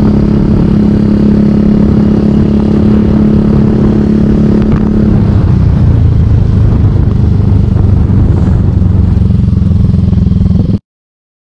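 Engine of a moving road vehicle running steadily, heard from on board, its note dropping lower about halfway through.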